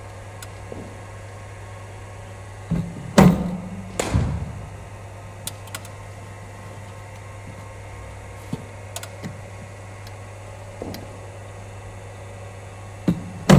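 Cricket net practice against a bowling machine: sharp knocks of the ball being fired and struck by the bat, in a cluster about three seconds in and again near the end, over a steady low hum.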